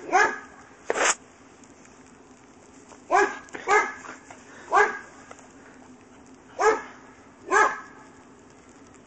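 Tibetan terrier play-barking excitedly at a snowball: about seven short, sharp barks, some in quick pairs, with pauses of a second or two between them.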